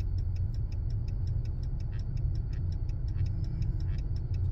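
Steady low engine rumble heard inside a vehicle cab, with a fast, even high ticking several times a second.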